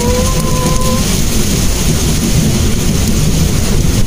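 Cabin noise of a Mitsubishi Mirage driving uphill in the rain: a steady low rumble of engine and tyres on the wet road under the hiss of rain on the car's body and windshield. A brief steady tone is held for about the first second.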